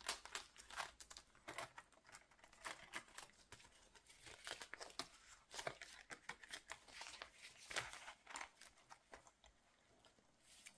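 Faint rustling and crinkling of plastic binder sleeves and paper inserts being handled, with irregular small clicks and taps that die away near the end.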